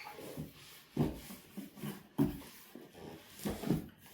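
Cardboard box and packaging being handled as an air fryer is worked out of it: a few sudden rubbing and knocking sounds about a second apart.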